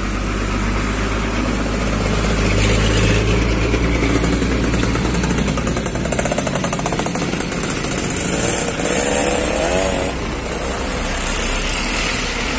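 A motor vehicle engine running steadily. Its low hum changes about six seconds in.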